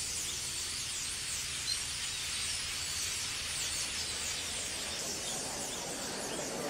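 Steady hiss with faint high squeaks over a low hum, from a wood fire burning in a metal fire basket.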